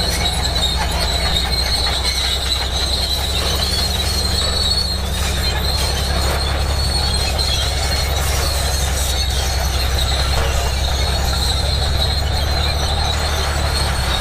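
Bulldozer running steadily, a low diesel engine drone under a continuous high-pitched metallic squeal from its steel crawler tracks.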